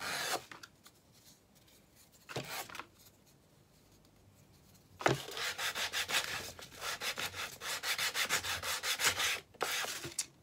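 Small MDF part being hand-sanded against a sheet of sandpaper to take its edges off. There are a couple of single strokes, then from about five seconds in a run of quick back-and-forth strokes, about five a second, ending with one more stroke near the end.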